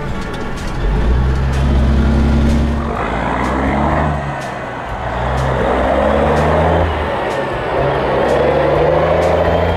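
Peterbilt 359's Caterpillar diesel pulling away under load, the engine note stepping up and dropping back again and again as it works up through the gears.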